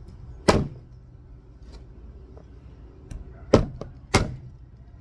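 Meat cleaver chopping raw duck into small pieces: three hard chops, one about half a second in and two close together near the end, with a few lighter taps between.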